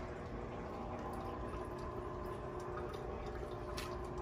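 Faint steady background noise with a low, even hum.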